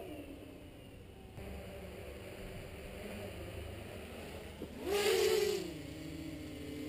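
Brushless outrunner motors (Sunnysky 2212 1400kV) of a T-copter multirotor running overhead. Their pitch drops as the throttle comes off at the start, then about five seconds in a short throttle burst raises the pitch and loudness before it settles back down.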